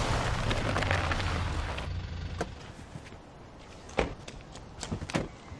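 Car road and engine noise fading away as the car pulls up and stops, followed by a few short clicks and knocks from a car door being opened and someone getting out.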